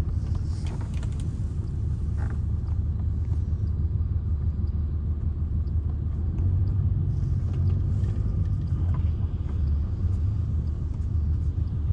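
Mercedes-Benz O-500R bus's diesel engine running steadily, a low drone with no change in pitch.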